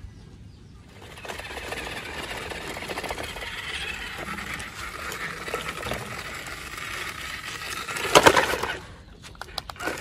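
A small electric motor driving plastic gears in a home-built RC toy vehicle, running steadily with a fine rattle. It gets louder briefly near the end, then stops with a few sharp clicks.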